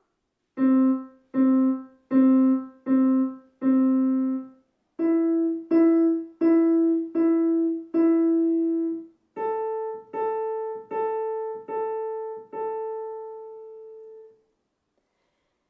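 Piano playing single notes at an even pace: C five times, then E five times, then A five times, each group a step higher. The last A is held and rings out.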